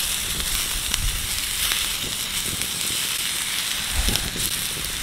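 Fillet steaks, sweet potato and onion sizzling in a frying pan over a campfire: a steady hiss with a few pops and crackles.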